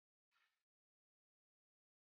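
Near silence, broken once by a very faint, brief noise about a third of a second in.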